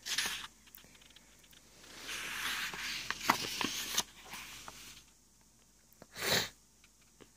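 Paper rustling as a picture book's page is turned: a soft rustle with a few small clicks, then another short rustle near the end.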